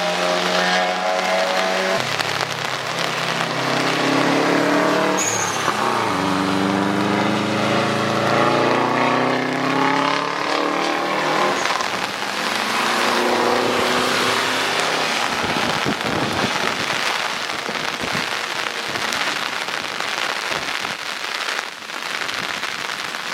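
Cars driving past on a wet track in hard rain: engine notes rise and then fall in pitch as the cars go by, over a steady hiss of rain. In the second half the engines fade and the rain hiss is left.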